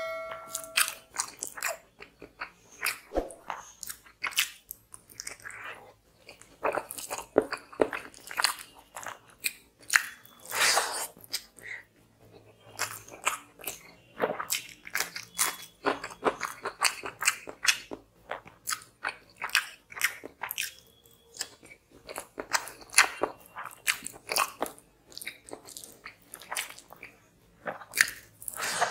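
Close-miked eating: a person chewing and biting rice and chicken curry eaten by hand, with wet chewing, lip smacks and crunchy bites in quick, irregular succession.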